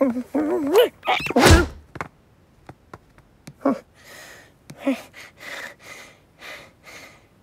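Cartoon cat voice effects: a wavering, whiny mew, then a heavy thud about a second and a half in as the cat falls. Then a string of short, breathy huffs and little grunts of effort as it claws its way back up.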